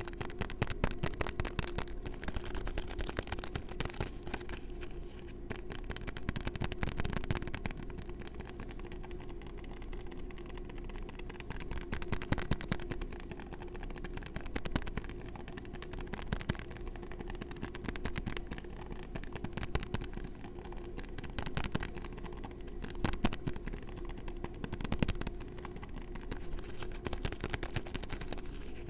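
Fast, aggressive fingertip tapping and hand sounds close on a small microphone: dense quick clicks throughout, with louder flurries every few seconds, over a faint steady hum.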